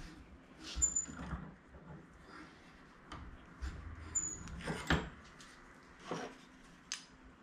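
Small bench vise being worked by its handle on a small aluminum angle bracket: scattered metallic clicks and knocks, with two brief high squeaks about a second and about four seconds in. Near the end the bracket is handled as it comes out of the jaws.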